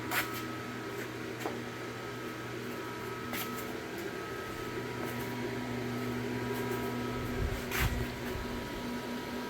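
Steady mechanical hum in a small room, with a few light clicks and a soft low thud near the end.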